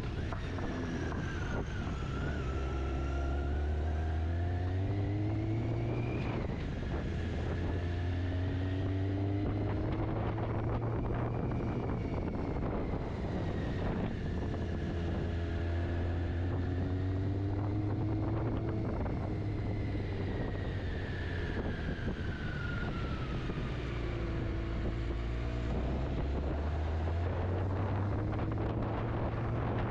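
Motorcycle engine running on the move, its pitch climbing and dropping back several times, with wind buffeting the microphone.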